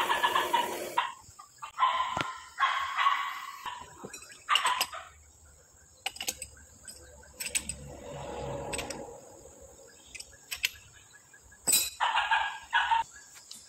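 Several short chicken calls, mixed with scattered sharp metallic clinks and knocks as a steel screw shaft is handled and set up in a lathe chuck.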